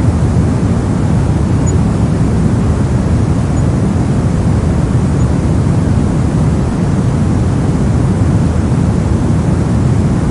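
Brown noise: a steady, loud, deep rushing hiss, strongest in the bass and thinning toward the treble, with no change in level or character.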